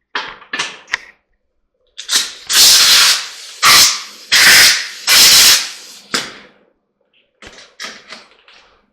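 A run of short, loud, noisy strokes from hand work cleaning up the grooves of a drive shaft's U-joint and slip-yoke parts. A few quick strokes come first, then four longer ones of about half a second each, then fainter short ones near the end.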